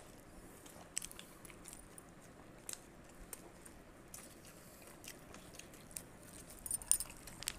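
People chewing soft steamed idli eaten by hand: faint mouth sounds with scattered small clicks, and a short run of sharper clicks near the end.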